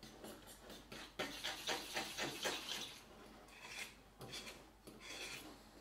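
A spoon stirring and scraping a thick mix of mashed banana and protein powder in a bowl, in quick repeated strokes that are busiest between about one and three seconds in.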